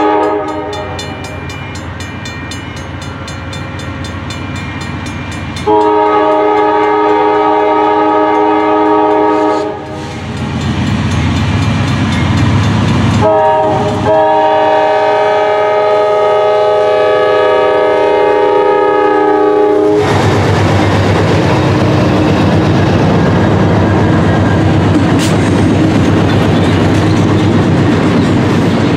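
A Norfolk Southern freight locomotive's multi-chime air horn blowing the grade-crossing signal: a blast ends just after the start, then a long blast, a short one and a final long one that cuts off about two-thirds of the way through. Below and after it the locomotives' diesel engines rumble past, and the flatcars clatter over the rail joints.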